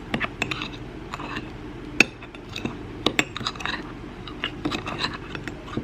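A spoon clinking and tapping against a small cup in quick, irregular strikes, with two louder knocks, as sugar is spooned into the dry cake mix.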